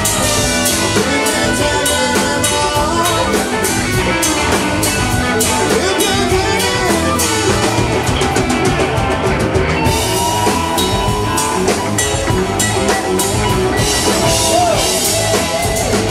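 Rock band playing live: an electric guitar lead with bending, wavering notes over drum kit and bass, with dense cymbal hits that get heavier about ten seconds in.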